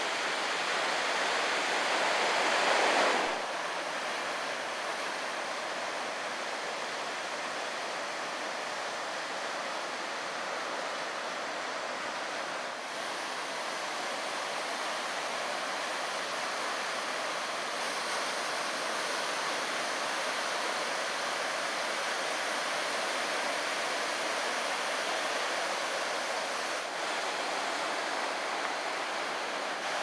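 Steady rush of large ocean waves breaking. It is louder for the first three seconds, then drops suddenly to an even, lower rush.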